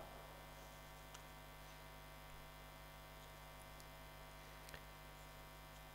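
Near silence with a steady low electrical mains hum, broken only by a couple of faint ticks.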